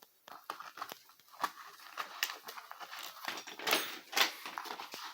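Door lock being worked to unlock a closet door: a run of irregular clicks, rattles and scraping, loudest about four seconds in.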